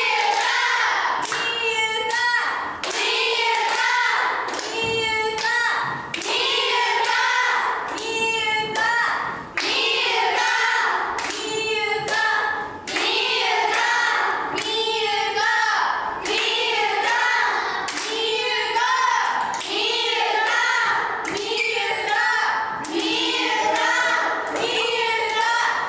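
Concert crowd chanting a short repeated call in unison, clapping together on a steady beat about three times every two seconds.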